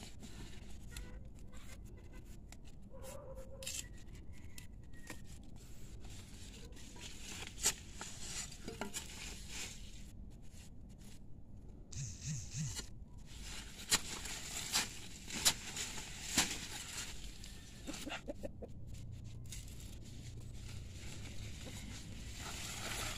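Short-handled hand hoe chopping and scraping in loose soil while digging up arrowroot tubers, with scattered sharp knocks and a cluster of louder strikes a little past the middle.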